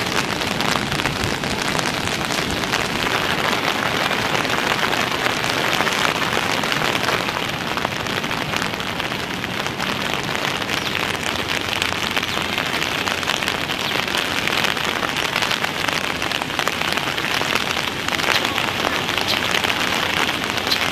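Steady rain falling, a dense patter of drops hitting the ground.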